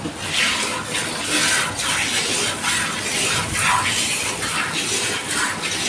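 Hand-milking a Murrah buffalo: jets of milk squirting into a steel bucket in a steady rhythm, about two squirts a second.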